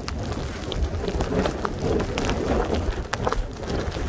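Nor'easter wind buffeting the microphone in a steady low rumble, with scattered light ticks through it.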